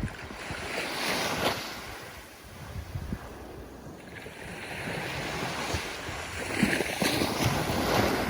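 Ocean surf: waves breaking and washing in, the rush swelling about a second in, easing off, then building again through the last couple of seconds.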